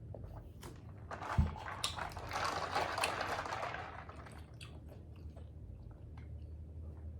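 A taco being bitten and chewed close to the microphone, mukbang-style. A low thump comes about a second in, then a louder crunchy stretch of a couple of seconds, then softer chewing.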